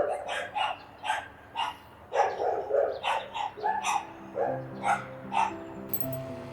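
A dog barking over and over in short barks, about two a second, stopping shortly before the end. Soft background music fades in about halfway through.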